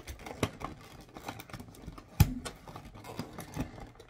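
Handling of an advent calendar box and its packaging: scattered light clicks and taps as a small item is worked out of its compartment, with one louder knock about two seconds in.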